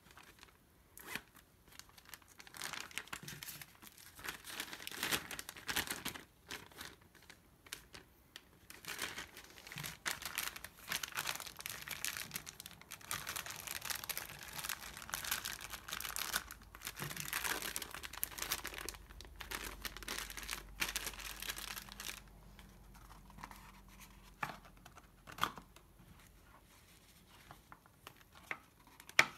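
Plastic wrapping and a zip-top freezer bag crinkling and rustling in the hands as a wrapped burger is pressed into the bag, busiest in the middle. A single sharp tap near the end.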